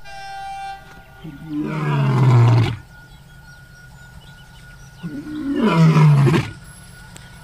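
Lion roars, two long roars a few seconds apart, each sliding down in pitch and cutting off abruptly. A steady low hum runs underneath.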